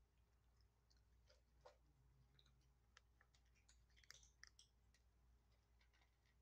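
Kittens crunching dry kibble: faint, scattered small clicks, with a short cluster about four seconds in.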